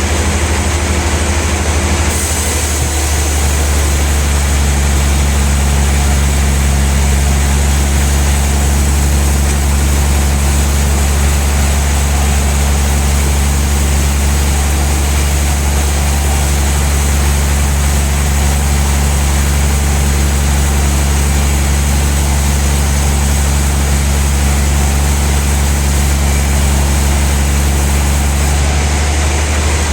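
Large band sawmill running with a steady low motor hum. A higher hiss of the blade cutting a log starts about two seconds in and stops shortly before the end.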